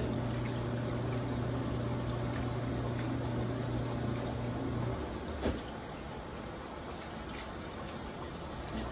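Tap water running from a kitchen faucet into a stainless steel sink, splashing over raw chicken pieces being rinsed and rubbed by gloved hands in a plastic colander. A low background hum stops about halfway through, followed by a single click.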